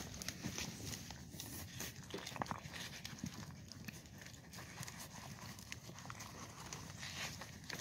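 Goats eating cooked celery out of a plastic bowl: a steady run of irregular crunching and clicking chewing sounds.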